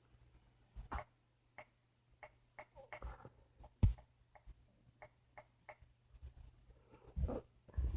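A scattering of light, sharp clicks and taps at irregular intervals, with one louder knock about four seconds in.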